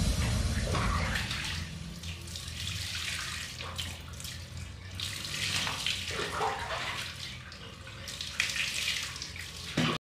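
Water splashing and dripping as a wet chihuahua is washed and rinsed by hand, with water scooped from a plastic basin. Electronic music fades out over the first two seconds, and the sound cuts off suddenly near the end.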